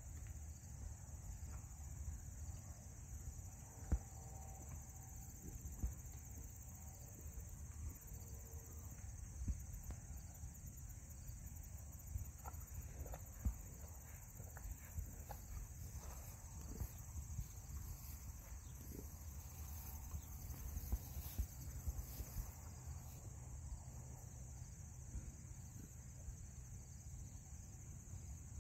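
Steady high-pitched chirring of crickets or other field insects, over a low rumble with scattered light knocks.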